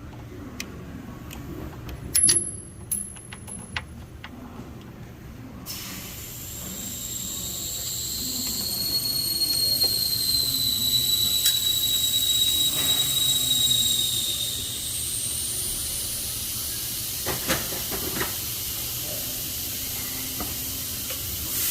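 A few sharp metallic clicks and clinks of hand tools. From about six seconds in, a steady hiss starts abruptly with a high whistling tone that wavers and dips slightly, and it goes on to the end.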